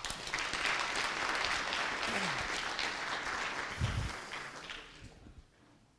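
Audience applauding, dying away about five seconds in, with a brief low thump about four seconds in.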